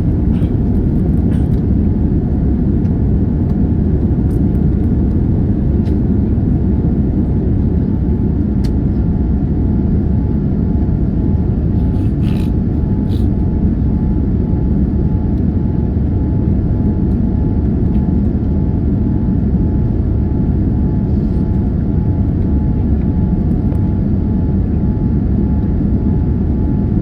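Steady cabin roar of a Boeing 787-9 in flight, a deep, even mix of engine and airflow noise with faint steady tones above it. A few faint ticks occur about halfway through.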